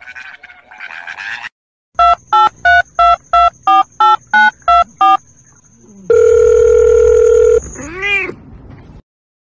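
Telephone keypad tones, about ten quick evenly spaced beeps of dialing, then a steady held phone tone for about a second and a half. Right after it comes a cat's short meow, rising and falling in pitch like a questioning 'hello?'.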